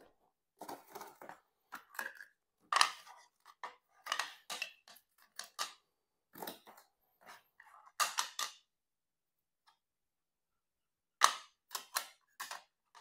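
Clicks, taps and light rustles of a capsule coffee machine's drip-tray parts being handled: the stainless-steel grid lifted off and pressed back onto the plastic tray. The clicks come in scattered clusters, with a short pause before the sharpest one near the end.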